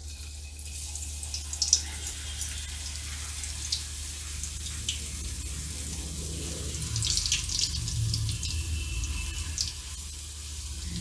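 Skewered spiral-cut potato deep-frying in hot oil in a wok: a steady sizzle with scattered crackles and pops, which come thicker from about seven seconds in.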